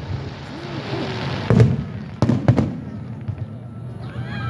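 Aerial fireworks going off: a hissing crackle, then sharp booming bursts about a second and a half in and twice more just after two seconds. Near the end come high whistles.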